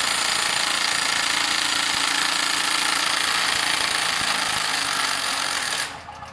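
Porter-Cable 20-volt cordless impact hammering continuously as it cranks a Champion 4000-watt generator's engine over in place of a broken pull rope. It stops abruptly about six seconds in.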